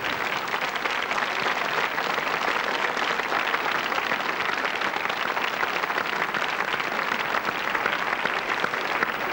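Studio audience applauding: many hands clapping in a steady, even patter.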